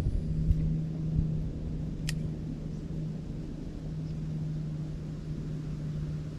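A steady low mechanical hum over a low rumble, with one short sharp click about two seconds in.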